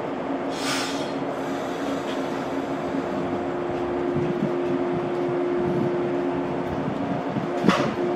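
Shinano Railway 115 series electric train departing a station: a steady two-note hum of its onboard equipment over a low rumble, with a short burst of air hiss about half a second in and a sharp hiss near the end as it starts to move.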